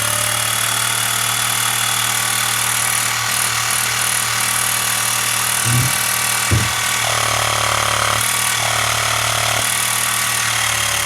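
Xiaomi Mi portable electric air compressor switched on, its battery-powered pump running with a steady, loud buzzing hum and hiss. Two brief knocks come about halfway through.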